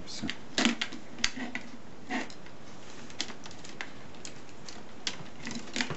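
Irregular light clicks and taps of small parts and tools being handled during laptop repair, over a steady hiss.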